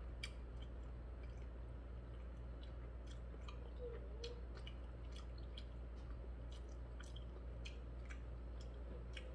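A person chewing a mouthful of hot dog close to the microphone, heard as scattered small mouth clicks over a steady low hum.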